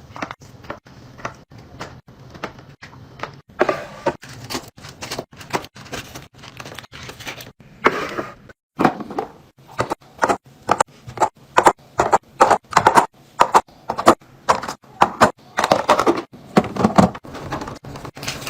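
A rapid run of clicks, taps and knocks as containers and items are handled and set down during a fridge restock, with a brief break about nine seconds in.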